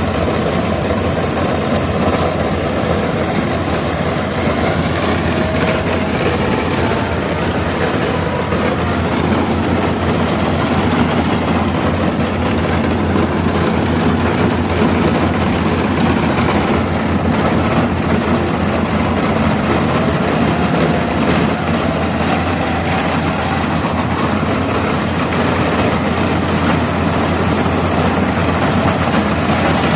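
Yanmar AW82V combine harvester's diesel engine running steadily under load, with its cutting and threshing machinery working.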